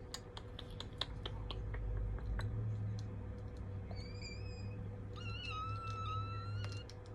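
Plastic Lego bricks clicking and rattling as they are handled, a dozen or so sharp clicks, followed by a thin, high-pitched, slightly wavering whine heard twice, the second one held for about a second and a half.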